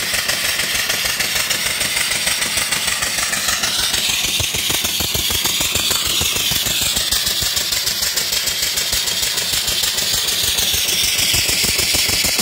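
Vertical single-cylinder live steam engine running steadily on steam from a boiler: a continuous loud hiss of exhaust steam over a fast, even beat from the engine's strokes.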